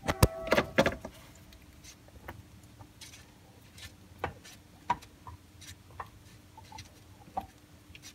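Hands working at an ATV's spin-on oil filter to unscrew it by hand: a cluster of sharp knocks and clinks in the first second, then faint scattered clicks and scratching.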